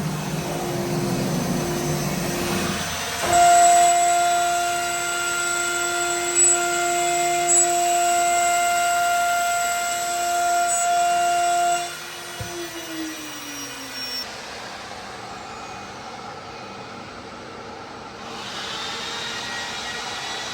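CNC router spindle whining steadily at high speed, then spinning down with a falling pitch about twelve seconds in, leaving quieter machine noise.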